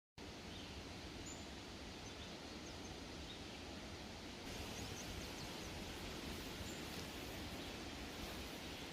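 Quiet outdoor nature ambience: a steady background hiss with faint, scattered high bird chirps. The level steps up slightly about halfway through.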